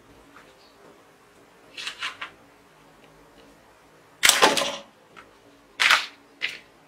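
Toy rifle firing a soft-tipped plastic dart with a sharp snap about four seconds in, then another sharp clack a moment later, with fainter handling clicks before.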